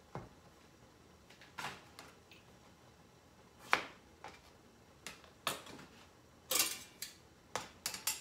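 Irregular sharp pops and ticks from a lidded pan of crab cooking on the stove. They are sparse at first and come more often in the second half.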